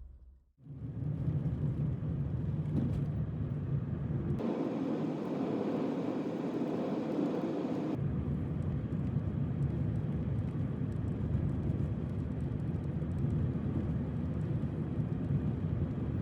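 Steady vehicle driving noise, a continuous low engine and road rumble. About four seconds in it turns abruptly thinner and brighter, and it switches back about eight seconds in.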